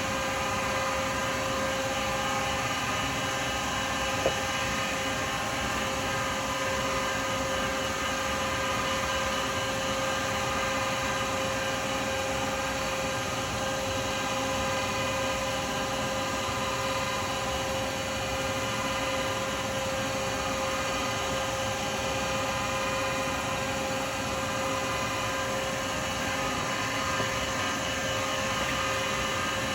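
Lathe running steadily at speed, a constant motor hum with a steady whine, while an acrylic pen blank spins under Brasso polishing. There is one faint click about four seconds in.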